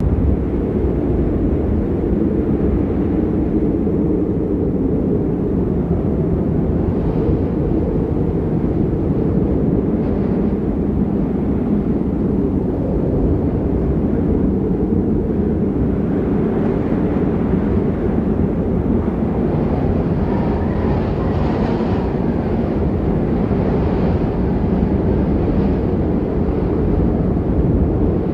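Wind blowing across the microphone: a steady low rumble with no break, a little brighter for a few seconds past the middle.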